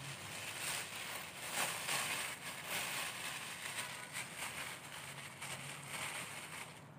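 A thin disposable plastic glove and a plastic bag crinkling and rustling unevenly as they are handled.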